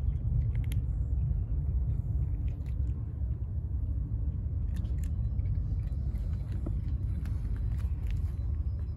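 Cats chewing dry kibble: scattered small crisp crunches over a steady low rumble.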